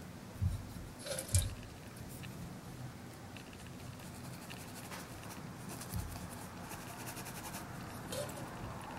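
Faint handling noise at a desk: a couple of soft knocks and a brief scrape in the first second and a half, then low steady room noise with a few small ticks.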